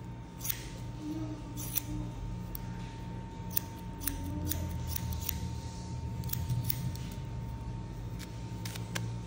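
Hair-cutting shears snipping hair over a comb: a dozen or so short snips at uneven intervals. A faint steady hum runs beneath.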